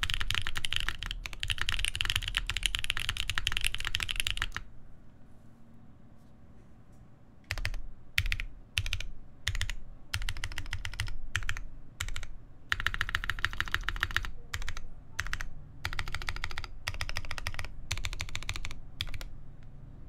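Typing on a TGR Jane v2 CE mechanical keyboard with a carbon fiber plate, GMK keycaps and lubed Boba U4T tactile switches. Fast continuous typing for the first four and a half seconds, a pause of about three seconds, then single keystrokes and short bursts with gaps until near the end.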